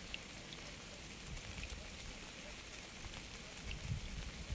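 Steady rain falling, with scattered individual drops ticking over an even hiss, and a brief low rumble about four seconds in.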